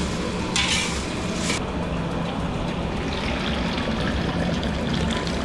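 A long spatula stirs masala frying in oil in a large iron kadhai, with a short sizzling scrape about a second in. Then thick cooked tomato paste is poured from a steel bowl into the hot masala, a soft steady wet pouring.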